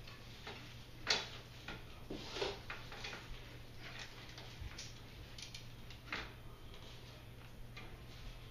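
Scattered clicks and light knocks of a Scott Scale mountain bike's front wheel and fork being handled as the wheel is fitted into the fork, the sharpest about a second in and a small cluster a little after two seconds.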